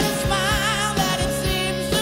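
Rock band playing: a singer holds a note with vibrato over a steady drum beat, then the vocal drops away while the band plays on.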